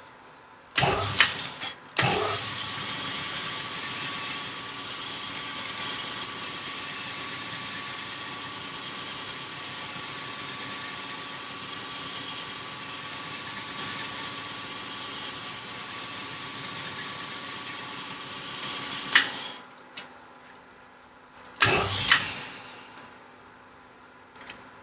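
Cylinder honing machine running its stones in a bore of a cast-iron engine block: a steady machine whine with a fixed high tone, starting about two seconds in and stopping abruptly near the end. Short loud bursts of noise come just before it starts and again a couple of seconds after it stops.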